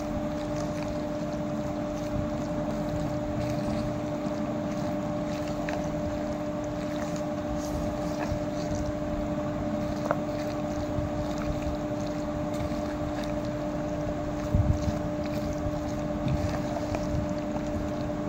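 Steady low drone with a constant hum, under the soft squelching and scraping of a white plastic spoon stirring a mayonnaise-and-cream-coated salad in a plastic bowl. There are a few faint clicks, and a couple of louder knocks about three-quarters of the way through.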